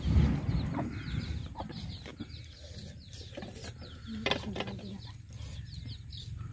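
Birds chirping over and over, quick short falling peeps, over a low background rumble, with a few sharp knocks.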